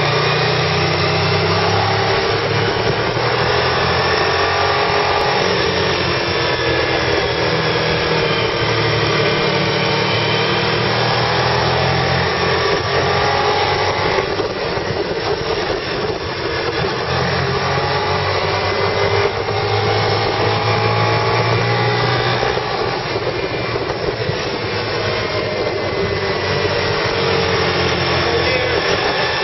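A vehicle's engine running with its transmission stuck in third gear, the engine note slowly rising and falling with road speed, under loud steady wind and road noise.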